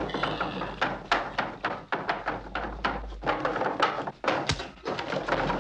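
Film soundtrack: a rapid, irregular run of thumps and knocks, several a second, over a steady noisy background.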